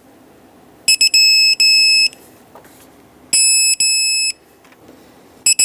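Digital torque wrench beeping as thermostat-housing bolts are tightened to 15 ft-lb: sets of loud, high-pitched electronic beeps, each a short pip or two and then two long beeps, the signal that the set torque is reached. Two full sets come about two and a half seconds apart, and a third starts near the end.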